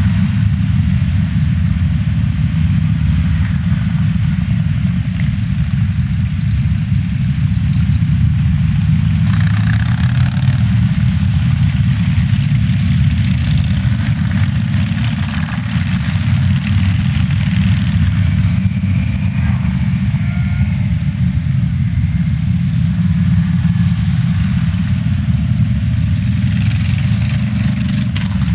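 Steady low rumble of a moving vehicle's engine and road noise.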